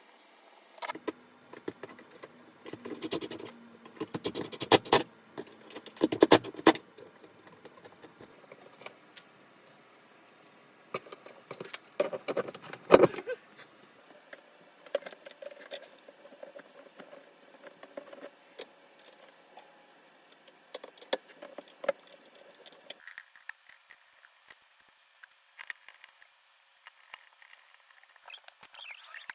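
Hand tools working on a drywall ceiling opening: bursts of scraping and cutting strokes with clicks and a metallic jingling rattle, then scattered small clicks.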